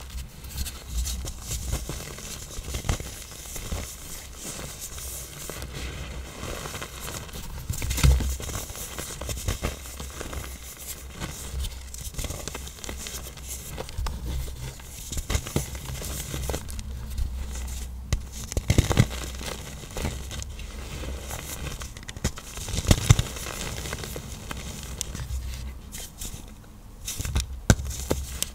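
Hard-set blocks of black iron oxide powder being crushed: continuous crunchy crackling and crumbling, with a few louder sharp snaps along the way.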